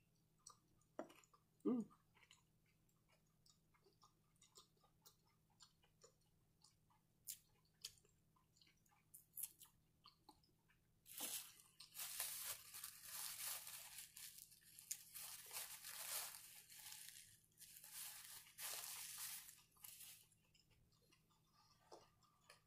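A person eating close to the microphone: soft chewing with scattered wet mouth clicks and a short hum of the voice about two seconds in. From about halfway through, about nine seconds of dense crunching follow.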